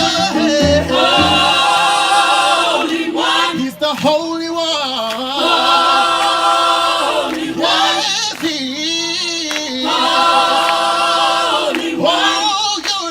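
Gospel choir singing full chords with vibrato, three long held chords of about two seconds each with shorter sung phrases between them.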